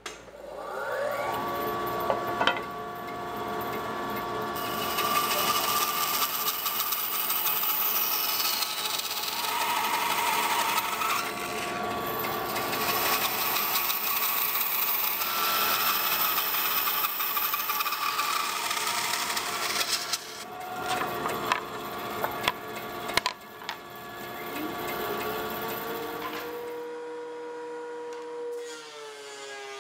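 A bandsaw running and resawing a wooden board on edge, the blade cutting steadily through the wood over the motor's steady tone. Later the cutting turns rougher and uneven. Near the end another machine motor spins up, its pitch rising, and the sound then settles lower.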